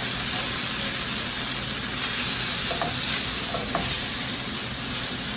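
White wine sizzling as it deglazes a hot pan of flour roux, garlic and capers. The hiss swells louder about two seconds in, with a couple of faint ticks partway through.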